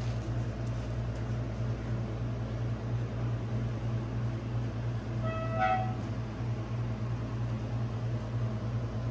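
Steady low hum with a short horn-like toot about five seconds in, lasting about half a second.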